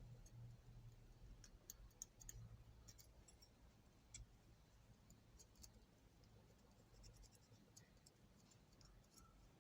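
Near silence, with faint, scattered small clicks and taps from the parts of a disassembled ratchet being handled and cleaned, most of them in the first half.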